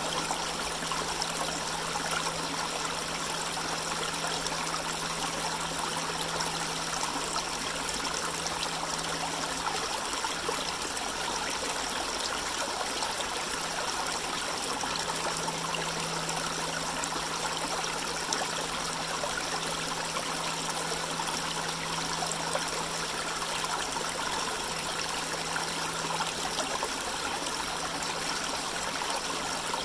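Shallow forest creek trickling steadily over rocks and stones.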